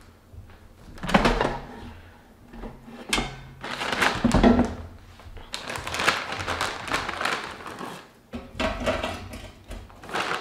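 Air fryer basket being pulled out of its plastic housing with a few clunks and knocks, and the plastic bag of frozen fish sticks crinkling as it is handled.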